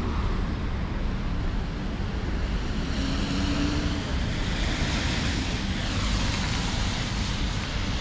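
Steady street traffic noise with wind buffeting the microphone, as a vehicle swells past around the middle.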